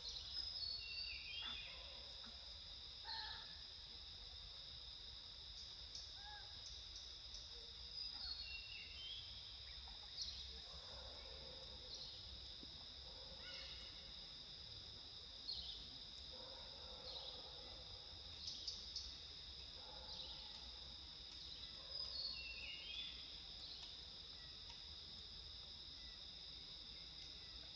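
Forest ambience: a steady high-pitched insect drone made of two even tones, with short bird chirps and calls every few seconds.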